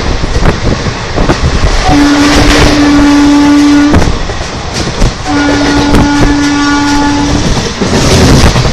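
WAP-4 electric locomotive's horn sounding two blasts of about two seconds each at the same steady pitch, over the loud rumble and clatter of the passing express train's wheels.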